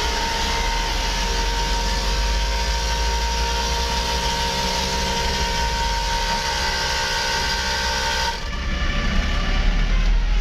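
Telolet multi-trumpet air horns holding one long, steady chord of several tones, cutting off sharply about eight seconds in. A low rumble continues after the horns stop.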